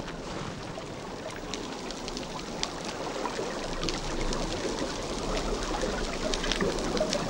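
Triggerfish crunching and breaking coral on the reef floor underwater: a steady watery hiss with many scattered sharp clicks and crackles, growing slightly louder towards the end.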